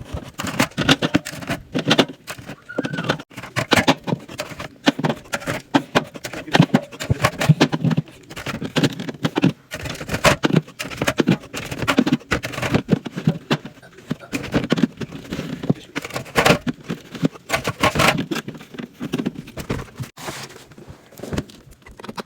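Drink bottles clinking and knocking as they are stacked onto drinks-fridge shelves, sped up into a fast, continuous clatter.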